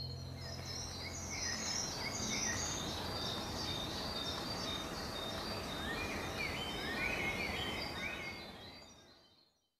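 Outdoor ambience of many small birds chirping over a steady hiss, fading out near the end.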